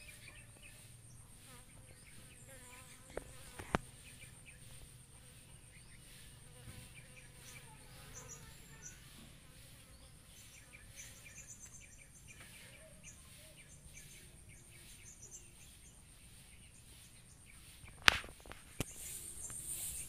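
Steady high insect chorus, like crickets, with a few sharp clicks: two small ones near the start and a much louder one about two seconds before the end.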